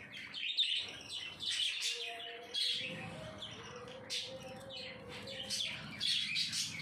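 Budgies chirping and chattering: a busy run of short, quick high chirps throughout.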